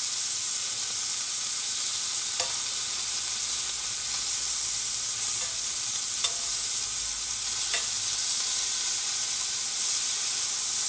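Coot breast strips sizzling steadily as they fry in butter in a stainless steel pan, with a few light clicks of metal tongs against the pan as the pieces are flipped.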